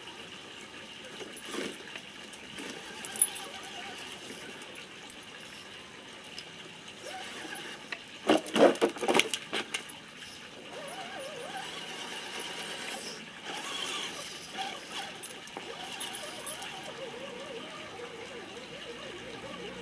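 Electric RC rock crawler truck driving over loose soil and rubble, its motor and gears whining faintly with scattered rattles. A cluster of loud clattering knocks comes about eight to nine seconds in, as the truck comes down off the dirt pile.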